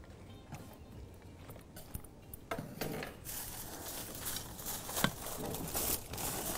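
A few faint knocks of a spatula in a bowl, then, from about two and a half seconds in, the steady rustling crinkle of aluminium foil and baking paper being handled, with one sharp click near the end.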